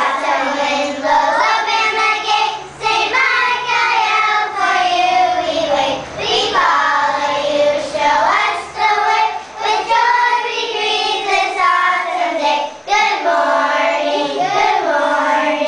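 A group of children singing a song together, with long held notes.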